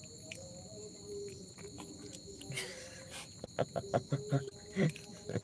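Crickets chirping steadily with a high, even trill. In the last two seconds a few louder short sounds break in over them.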